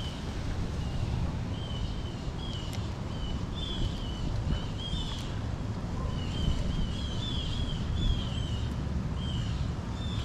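A small bird chirping over and over in short wavering notes, over a steady low background rumble.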